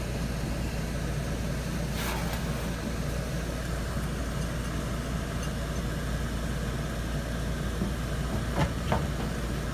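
Steady low rumble, with a short scraping burst about two seconds in and a couple of faint brief sounds near the end.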